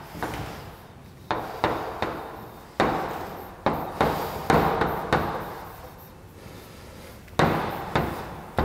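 Chalk writing on a blackboard: a string of about ten sharp taps as the chalk strikes the board, each trailing off in a short scratch, with a quieter pause of a couple of seconds before two more taps near the end.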